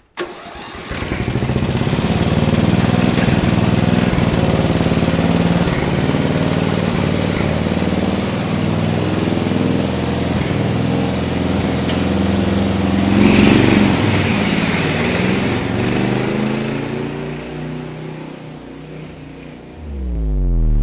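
Murray riding lawn mower's engine starts just after the beginning and runs as the mower drives off, its pitch rising and falling with the throttle. It is loudest about two thirds of the way through and then fades as the mower moves away. A whooshing sound effect cuts in at the very end.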